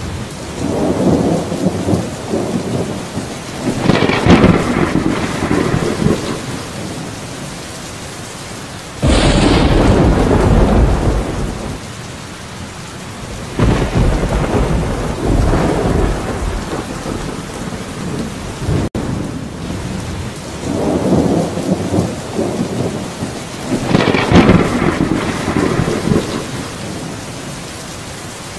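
Steady rain with thunder rumbling again and again through it, the loudest clap breaking in suddenly about nine seconds in and rolling off into a long rumble.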